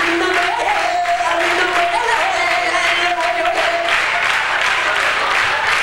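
Audience clapping along while a man sings a wavering, ornamented mock Middle Eastern pop melody without recognisable words. The sung line fades out about three and a half seconds in, leaving the clapping.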